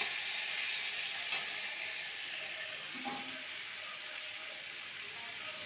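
Vegetables frying in oil in a metal kadai, a steady sizzle that slowly quietens, with one light spatula tap about a second in.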